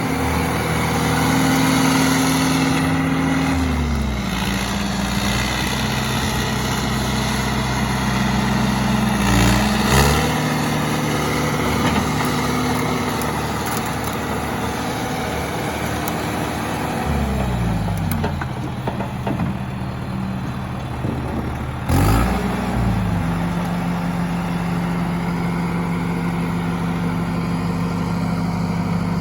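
John Deere 450C loader backhoe's diesel engine running steadily, its speed dropping a few seconds in, dipping briefly about ten seconds in, dropping again past the middle and picking back up near the end. A couple of short knocks come with the changes, about ten seconds in and near the three-quarter mark.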